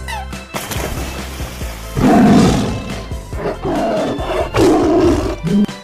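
A tiger roaring, loudest about two seconds in, with a second run of rough calls from about three and a half to five and a half seconds, over background music.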